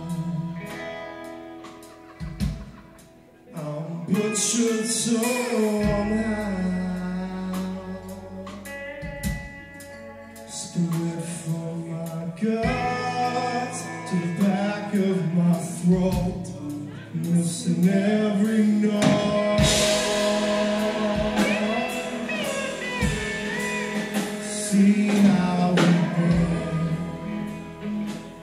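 Live band music: a man singing lead over a strummed acoustic guitar, with bass and drums underneath.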